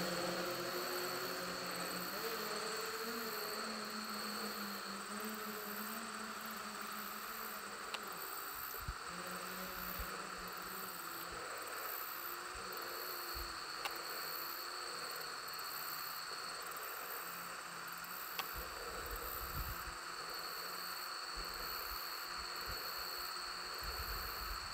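Insects buzzing and chirping: a steady high trill that comes and goes, over a regular high pulsing chirp. A faint wavering hum sits low down in the first half.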